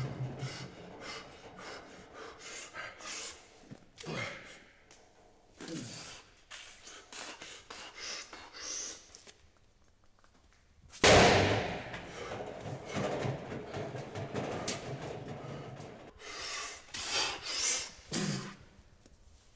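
Atlas stones being loaded onto steel platforms. The lifter breathes hard and strains between lifts, and there is one loud sudden thud about eleven seconds in as a stone lands on the steel platform.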